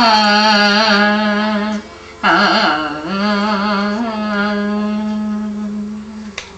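Women singing the long, held closing notes of a Thiruvathirakali (Kaikotti Kali) song. There is a short break about two seconds in, and the singing fades out near the end.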